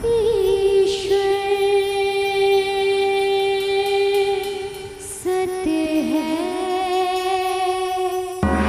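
Opening of a devotional bhajan: a long held melodic line with vibrato, shifting to a new wavering note about five seconds in.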